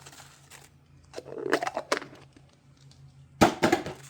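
Plastic toy capsule ball being handled and opened: scattered clicks and knocks of plastic, the loudest a sharp knock about three and a half seconds in.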